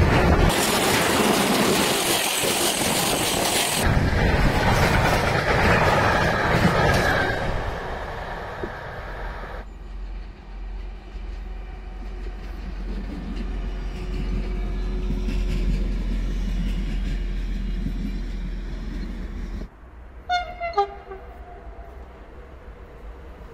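Freight wagons rolling past close by with a loud rushing rumble that fades away. Then a diesel railcar's steady low engine hum, and near the end two short blasts of an electric multiple unit's horn as it approaches.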